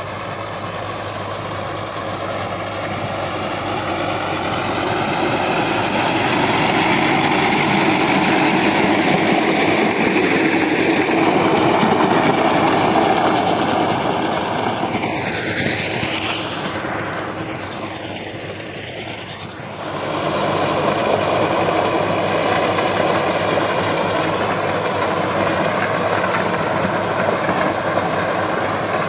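Sonalika DI 750 tractor engine running steadily under load while its rotavator tills dry soil. It grows louder as the tractor comes close, then fades with a falling pitch as it passes. About two-thirds of the way in it jumps back to a steady level.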